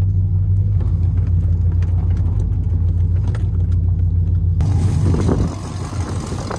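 Chevrolet Silverado 4.8-litre V8 on long-tube headers and true dual pipes with no cats and no mufflers, heard inside the cab as a steady, loud, low exhaust drone while the truck rolls along slowly. About four and a half seconds in it cuts to the same exhaust heard from outside the truck, rougher and less droning.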